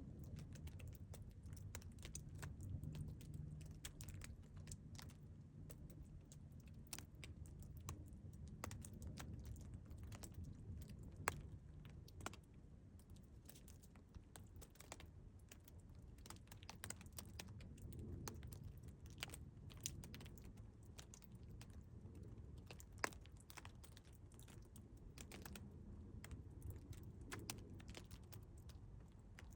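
Faint meltwater drops falling and tapping in an irregular patter, with a few louder drips about eleven, twelve and twenty-three seconds in, over a low steady rumble.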